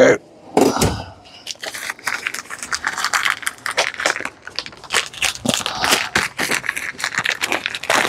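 Plastic packaging crinkling and tearing as it is opened by hand: a dense, irregular run of small crackles.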